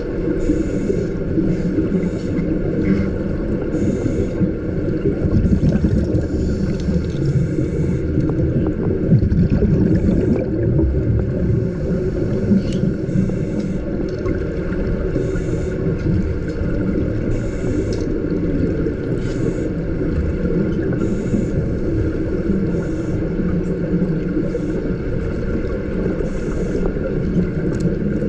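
Underwater sound of a scuba diver breathing through a regulator: a steady low rumble with short, irregular bursts of hissing exhaust bubbles every second or two.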